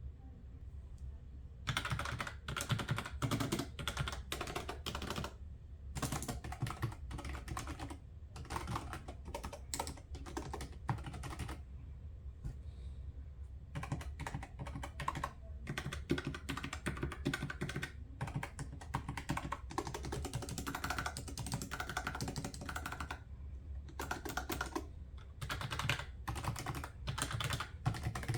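Typing on a computer keyboard: runs of rapid key clicks in several bursts, with short pauses between them.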